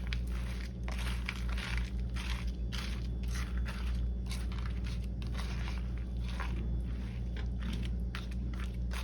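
A spoon stirring crunchy granola into a bowl of oatmeal: irregular crunching and scraping strokes, over a steady low electrical hum.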